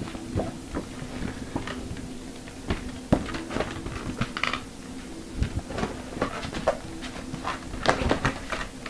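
Scattered light taps and clicks, a sharper one about three seconds in and a quick cluster near the end, over a faint steady hum.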